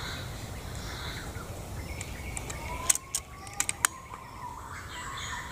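Outdoor ambience of faint bird chirps and insects, broken about three seconds in by a short cluster of sharp clicks, the first one the loudest.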